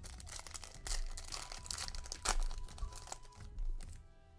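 Foil Yu-Gi-Oh booster pack being torn open and crinkled: a run of crackling rustles lasting about three seconds, sharpest a little past the middle.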